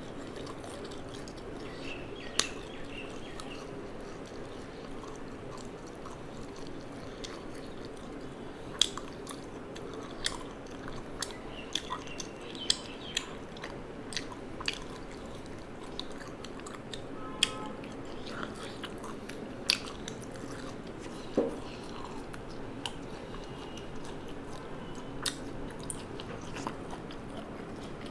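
Close-up eating sounds: chewing, with scattered sharp crunchy bites and mouth clicks over a steady low hum.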